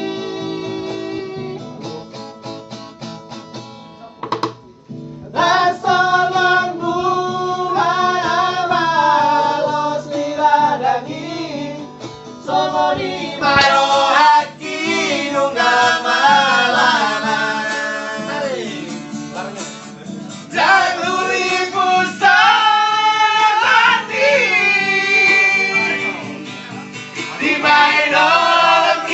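Men singing a song together to a strummed acoustic guitar. The voices drop out briefly about four seconds in, then come back in.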